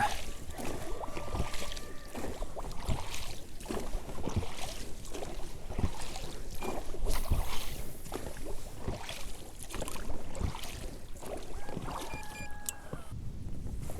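Inflatable boat being rowed: oars splashing in the water and knocking at an uneven pace.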